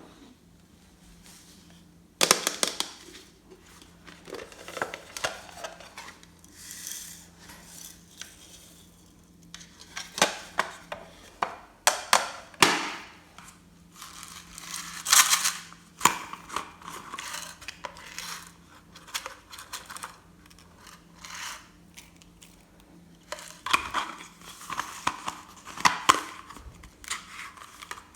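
Glossy slime squished and stretched by hand, giving sticky pops and crackles in irregular bursts with quieter squishing between them.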